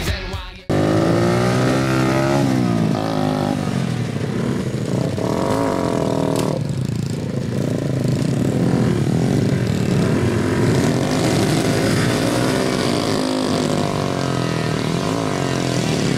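Several small 50 cc chopper motorcycles running together, their engines revving up and down as they move off slowly. They start about a second in, after a brief gap.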